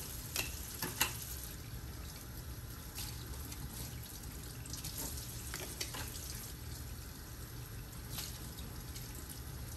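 Water running from a sink faucet as plastic dental impression trays are rinsed under it to wash off Cavicide disinfectant, with a few light clicks as the trays are handled.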